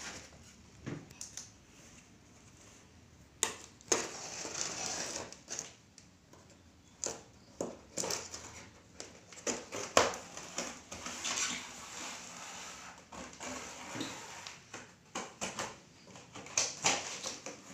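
Utility knife slitting packing tape and cardboard on a flat cardboard box, with irregular scraping and rustling of the cardboard and a few sharp knocks.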